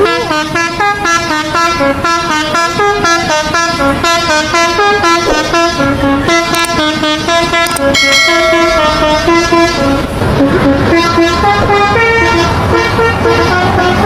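Telolet multi-tone horn playing a fast, jumpy melody of short notes, several a second, broken by a brief noisy stretch about ten seconds in before the tune resumes.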